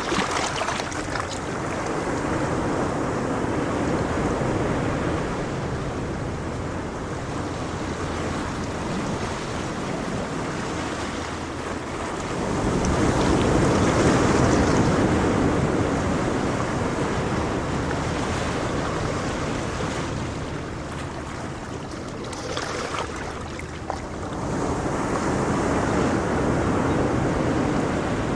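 Ocean waves breaking and washing in surf, a steady rush that swells as a bigger wave breaks about halfway through and again near the end.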